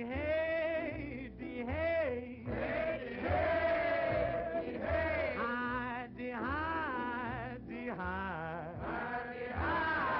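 Early-1930s swing big band playing, with a man singing long, wavering phrases over a steady bass beat.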